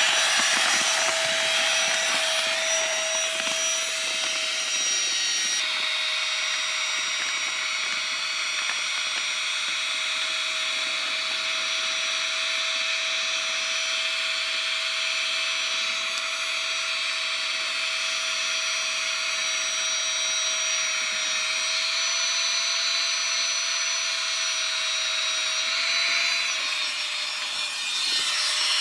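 AeroGoGo Giga Pump 4.0 compact electric air pump running steadily with a high fan whine as it inflates an air mattress. Its pitch rises slightly and then dips near the end.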